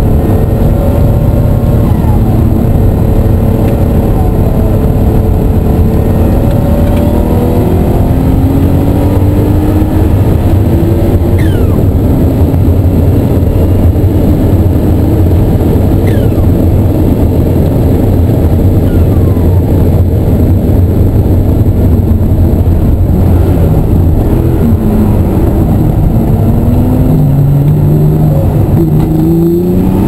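Ruf CTR "Yellow Bird" twin-turbocharged, air-cooled flat-six driven hard on track, heard from inside the cabin. The engine note repeatedly climbs under acceleration and falls away off throttle, over a loud, steady low rumble of engine and road noise.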